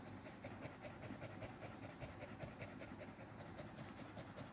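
A dog panting faintly in a quick, even rhythm.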